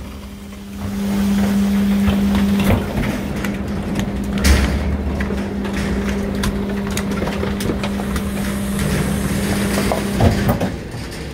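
Electric rear-loading garbage truck's packer mechanism running: a steady electric hum with clatter and a few knocks as the packer blade sweeps and compacts the bin bags in the hopper.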